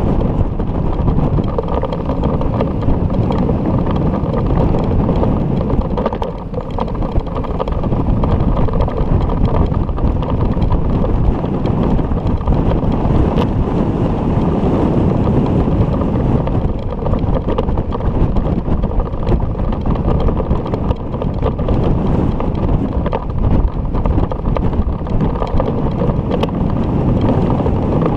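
Steady wind buffeting an action camera's microphone while riding a bicycle along a road, a dense low rumble and rush that eases briefly about six seconds in.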